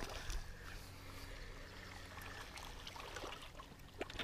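Faint water lapping and trickling against a small boat's hull, over a low steady hum and a few light clicks.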